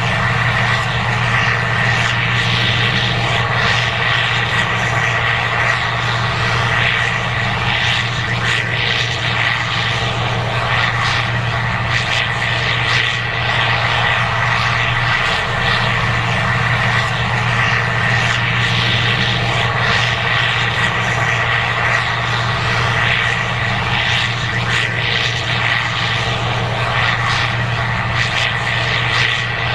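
Case IH 2188 Axial-Flow combine running steadily while harvesting corn: a constant low diesel drone with a steady high whine on top.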